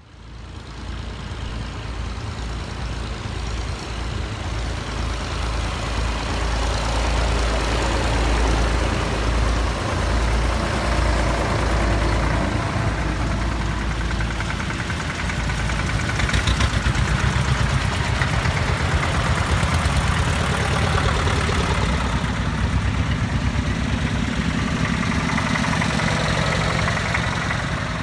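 Column of vintage tractors driving past one after another, their engines running with a low, pulsing beat that swells as each nearer tractor goes by.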